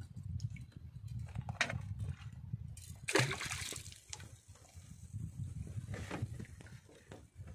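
Sea water sloshing and splashing against a small outrigger boat's hull, over a steady low rumble, with a louder rush of splashing about three seconds in and a smaller one near six seconds.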